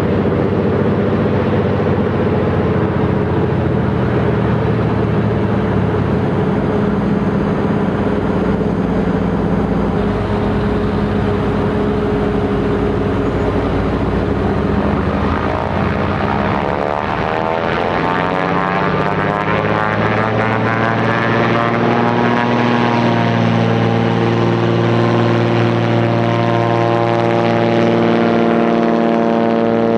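1954 de Havilland Beaver floatplane's Pratt & Whitney R-985 radial engine and propeller running continuously as it taxis on floats, the tone wavering and sweeping about halfway through. In the last several seconds the engine grows a little louder and steadier as the plane runs across the water at speed.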